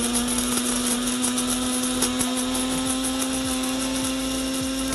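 Cuisinart SG-10 electric spice-and-nut grinder running, its blade chopping cinnamon sticks: a steady motor hum that slowly rises a little in pitch, with the pieces clicking and rattling against the bowl.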